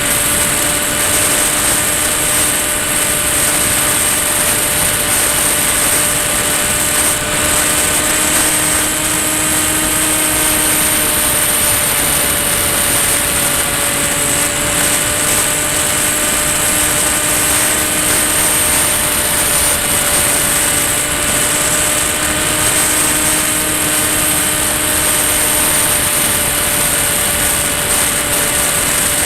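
Ranger EX model plane's electric motor and propeller running steadily in flight, a droning whine that drifts a little in pitch, with a high hiss over it.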